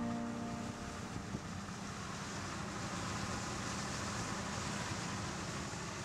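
Combine harvester running steadily in the field: a low, even hum under a broad rush of noise. The last strummed guitar chord of the music fades out in the first half second.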